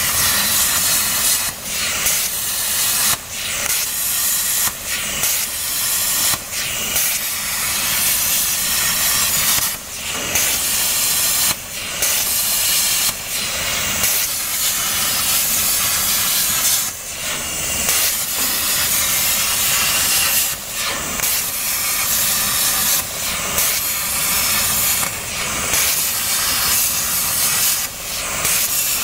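CNC plasma cutting torch arc hissing loudly as it cuts 2 mm galvanized sheet, dipping briefly every second or two.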